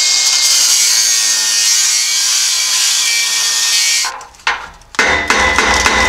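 Cutoff wheel cutting a slit into the rusted muffler inlet to break its rust bond with the exhaust pipe. It gives a steady high whine whose pitch sags slightly as the wheel bites. It stops about four seconds in and starts cutting again a second later with a regular pulsing.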